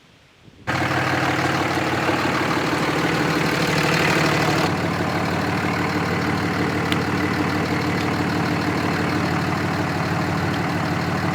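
The engine of a 1972 Wagner L120 log loader idling steadily. It cuts in abruptly under a second in, after a moment of near silence.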